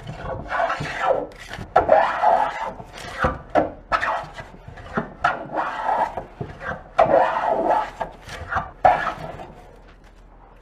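Hand plane cutting shavings from a wooden board in quick repeated strokes: a rasping swish as the blade shaves each pass, with knocks as the plane is set down and drawn back. The strokes stop shortly before the end.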